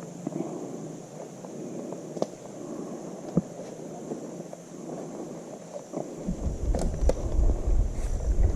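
Movement noise while walking outdoors: footsteps and rustling with a few sharp clicks, then from about six seconds in a heavy low rumble on the microphone.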